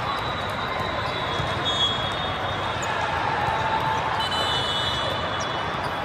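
Steady din of a busy gym during volleyball play: a blur of distant voices with short high squeaks, typical of sneakers on the court floor, and faint thuds of balls.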